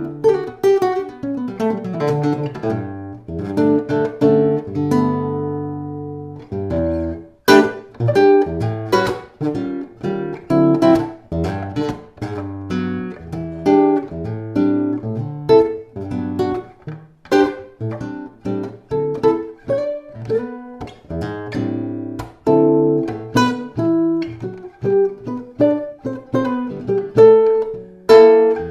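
Ramirez 2CWE nylon-string classical guitar being fingerpicked, its sound port on the upper bout open: chords ring and fade over the first few seconds, then from about seven seconds in a brisk run of single plucked notes.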